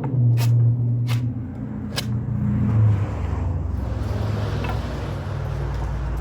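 Sanding the cut ends of pressure-treated 2x2 lumber: a steady low rumble with a hiss of abrasion, and a few sharp knocks of the wood in the first two seconds.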